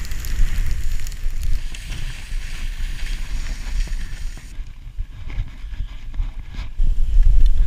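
Wind rumbling on the microphone of a head-mounted camera during a ski run, with the hiss and scrape of skis in snow. The sound changes abruptly about halfway, and the wind rumble grows louder near the end.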